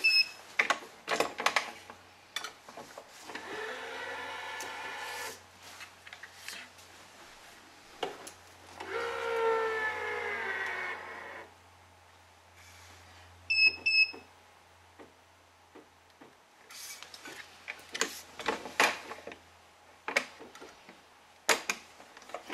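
Electronic tension head of a badminton stringing machine pulling BG80 string: its motor runs twice with a whine that bends in pitch. A short two-tone beep sounds twice, once at the start and once about two-thirds through. Sharp clicks and knocks come from the clamps and string being handled.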